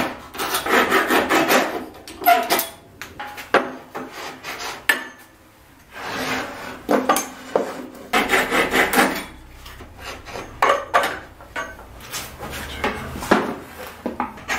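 A hole in a plywood board being enlarged by hand: bursts of quick back-and-forth rubbing strokes, about ten a second, with pauses between them. Single knocks come in between as the board is handled.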